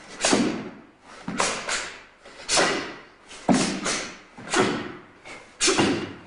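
Karate uniform snapping and bare feet stepping and stamping on a wooden floor during the techniques of the Shotokan kata Heian Sandan: a sharp snap or thud every half second to a second, each echoing in a large hall.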